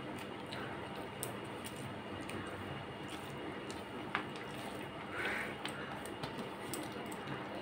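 Eating by hand from a steel plate: fingers squishing and mixing rice with crunchy chanachur, with a few sharp little clicks against the plate and a louder rustly crunch about five seconds in, over steady background noise.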